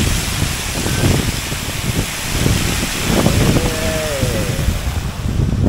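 Wind buffeting the microphone over the steady splashing of a fountain's water curtain falling from an overhead canopy into its basin. A brief falling squeal comes about four seconds in.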